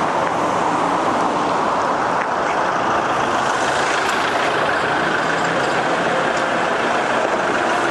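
Steady street traffic noise, with a Fiat Ducato route minibus pulling in to the stop and its engine running at low speed.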